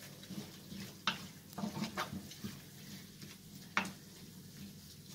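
Wooden spatula stirring chicken in a creamy melted-cheese sauce in a ceramic-coated frying pan: irregular scrapes and taps against the pan, a few of them sharper, over a faint sizzle from the still-hot sauce.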